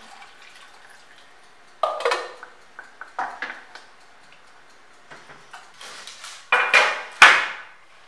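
A spoon stirring thick soup in an enamelled pot, scraping and knocking against the pot a handful of times, the two loudest strokes near the end.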